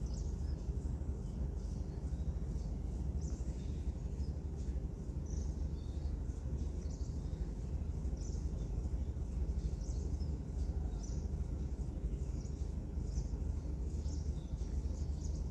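Steady low background rumble of room ambience, with faint, short high chirps scattered irregularly through it.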